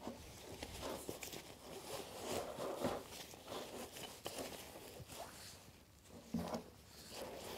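Nylon camera waist pack being handled and packed: irregular rustling and scraping of fabric, with scattered small clicks.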